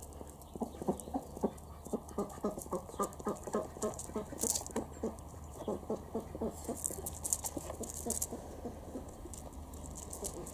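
A Barbet dog breathing hard close by, in quick rhythmic puffs about four a second, as it noses around a pile of planks.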